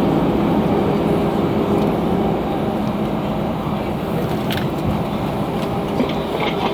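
Cabin noise inside an Airbus A320 rolling on the ground just after landing: a steady rush of engine and rolling noise with a low hum, easing off a little in the first few seconds as the plane slows.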